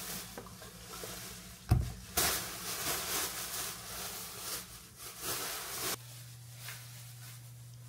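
Plastic grocery bag rustling as groceries are unpacked, with one sharp knock about two seconds in. Near the end the rustling stops and only a steady low hum remains.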